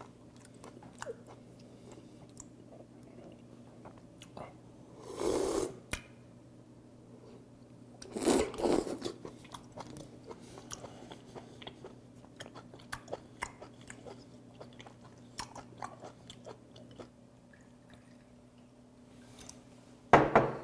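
Close-up chewing of raw stone sea squirt: many small, wet, crunchy clicks. There are two louder, noisier bursts about five and eight seconds in, and a sharp loud one right at the end.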